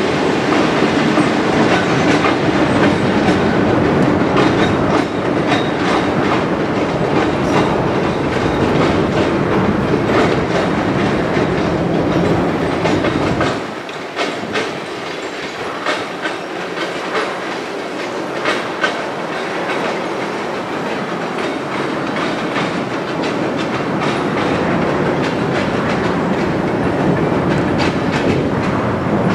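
Freight train passing slowly. Diesel locomotives rumble at first; about halfway in the low rumble drops away suddenly, leaving the freight cars' wheels clicking and clacking over the rails.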